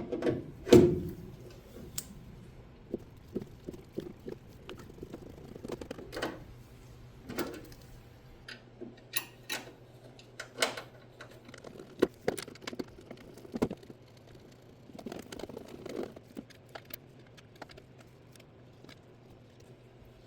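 Scattered clicks, taps and light knocks of hand tools and small metal parts being handled while fitting M6 rivet nuts, with a louder knock about a second in.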